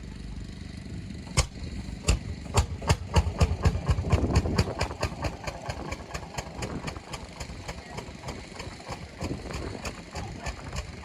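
Old tractor engine running slowly with distinct, evenly spaced exhaust beats. About a second in the beats begin, coming closer together over the next two seconds, then settle at roughly three a second.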